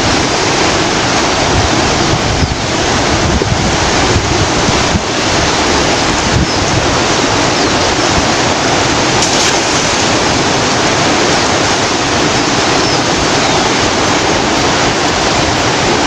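Swollen river rushing steadily, a constant roar of flowing water.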